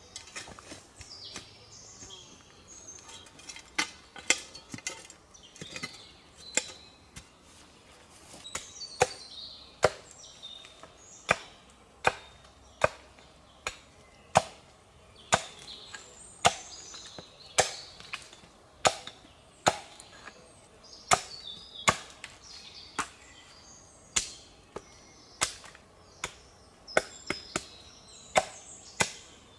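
Axe chopping wood on a tree-stump chopping block, sharp strokes a little over a second apart, with birds chirping in the background.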